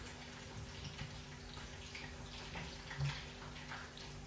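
Faint soft wet plops and taps as boiled cauliflower florets are dropped by hand into a glass bowl of tahini sauce, with a slightly louder knock about three seconds in, over a low steady hum.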